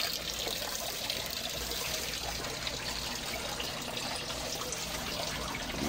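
Water pouring in a steady stream from a short pipe outlet into a fish tank below, splashing on the water surface.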